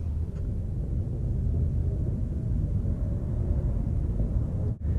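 Steady low wind rumble buffeting the microphone, dropping out for an instant near the end.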